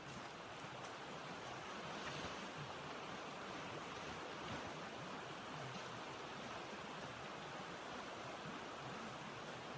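Steady rushing wind, an even unbroken noise, with a few faint clicks in the first second.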